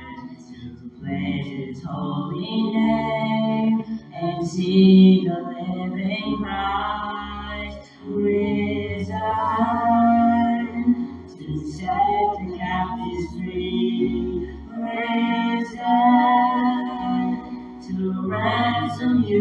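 A woman and a boy singing a worship song together into a microphone over an accompaniment of low held bass notes, the sung phrases carrying a light vibrato.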